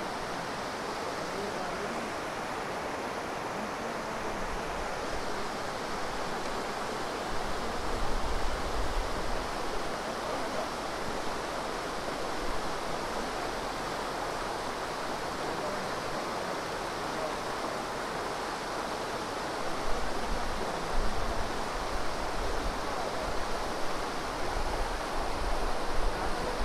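River water rushing over rocks and boulders in shallow rapids: a steady rushing noise. Low rumbling buffets come about eight seconds in and again through the last several seconds.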